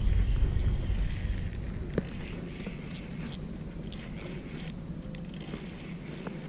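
Spinning reel being cranked to bring in a small catfish, with faint scattered clicks. A low rumble fades out over the first two seconds.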